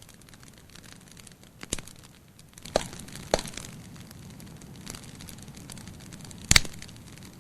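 Campfire crackling: burning wood giving scattered sharp pops over a low steady hiss, the loudest pop about six and a half seconds in.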